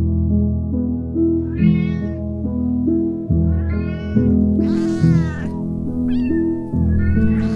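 A cat meowing about five times over background music, one call rougher and more drawn-out than the rest.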